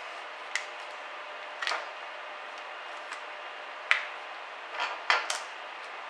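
Sharp plastic-on-metal clicks as a plastic pry tool works along the seam of a Dell XPS 14z laptop's aluminium bottom cover, about half a dozen in all, loudest about four seconds in and in a quick cluster near the end, over a steady hiss.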